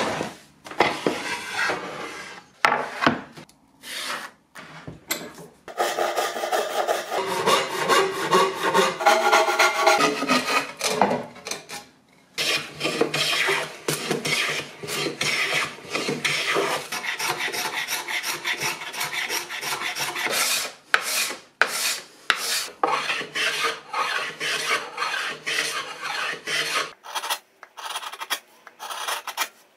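Hand tools working a cherry-wood board: quick rasping strokes of a metal hand plane and an edge tool against the wood, in runs broken by brief pauses.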